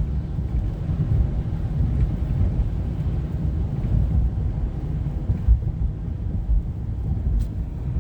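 Wind buffeting the microphone in a snowstorm, a low uneven rumble.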